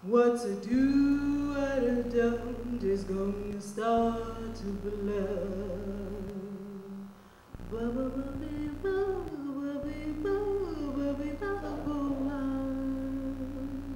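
A woman's voice singing a cappella into a microphone, in three long, slowly bending phrases with short breaks between them.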